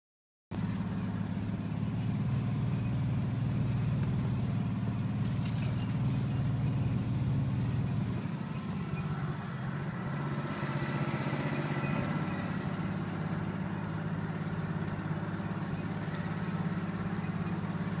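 A vehicle engine running steadily with a low drone. It cuts in abruptly about half a second in.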